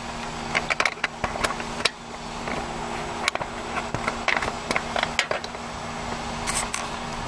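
Irregular light clicks and knocks of handling and tools under the hood, over a steady low hum.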